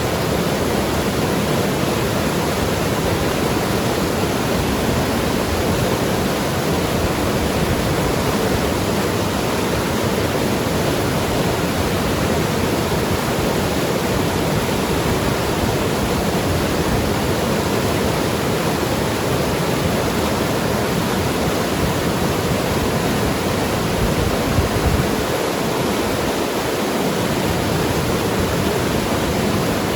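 Mountain river rushing and gurgling over rocks, a steady, dense water noise with a brief low thump about 25 seconds in.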